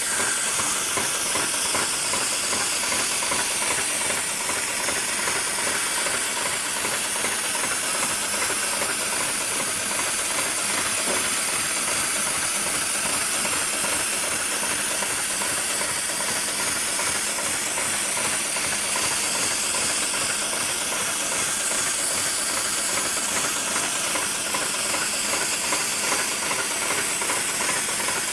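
An industrial programmable heavy-duty sewing machine at work, heard as a steady, even hiss with machine running underneath that does not change.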